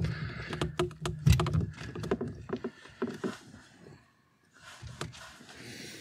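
A steering wheel lock being handled by hand: a run of small clicks and knocks in the first few seconds, then a brief dead gap and faint rustling.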